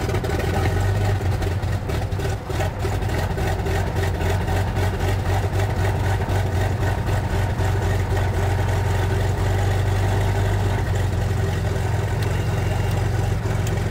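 The Cessna T206H Stationair's turbocharged six-cylinder Lycoming TIO-540 engine idling steadily just after starting, with an even, rapid pulsing.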